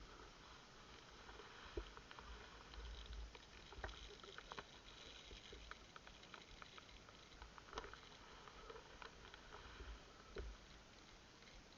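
Near silence: faint scattered clicks and rustles with low bumps, the handling noise of a player moving about, with no clear single source.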